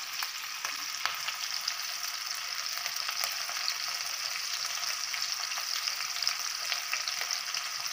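Slit green chillies frying in hot oil in a stainless steel kadai: a steady sizzle with fine crackles as the chillies soften.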